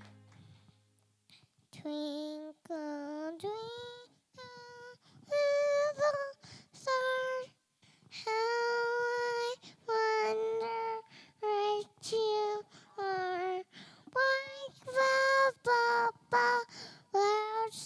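A child singing a slow melody alone, in held notes, with no accompaniment heard. The singing begins about two seconds in, after a short gap.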